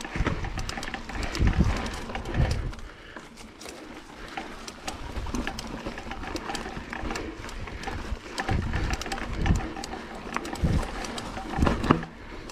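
Mountain bike being pedalled up a steep, root-covered singletrack climb: the bike rattles and clicks over the roots, and the rider breathes hard, heaving about once a second near the start and again in the last few seconds.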